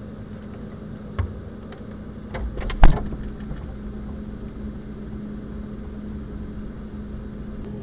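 A few knocks as the camera is handled, then a loud thud about three seconds in as a small fridge's freezer door shuts on it. A steady low hum carries on throughout.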